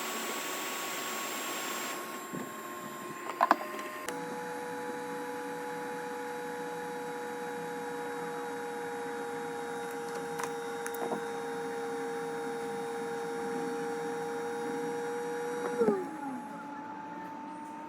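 Blower motor of a hot-air rework station running with a steady whine over rushing air. Its tone shifts a couple of times, and near the end the whine drops in pitch as the fan winds down, with a few clicks in between.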